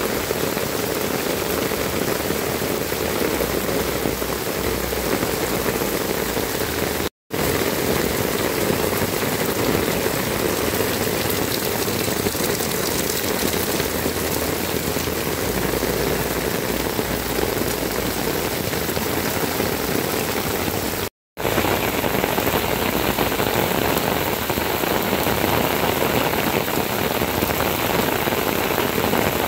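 Heavy tropical rain pouring steadily on clay-tiled roofs and the wet ground around them. It is an even, unbroken hiss that cuts out completely for a split second twice, about 7 and 21 seconds in.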